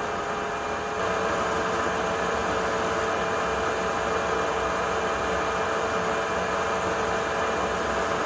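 Shunzao Z11 cordless stick vacuum running with a steady motor whine over airflow noise, stepping up to a louder, slightly higher-pitched power setting about a second in.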